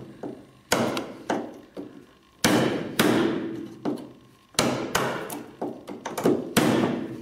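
A woodworking chisel driven into wood by about a dozen separate blows of a striking tool, at an uneven pace of roughly two a second. Each blow is a sharp knock with a short ring, as the chisel chops out a tenon shoulder.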